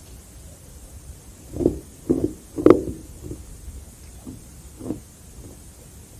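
Carbonated crushed ice being chewed: a run of about six crunches spaced roughly half a second apart, the loudest and sharpest one near the middle.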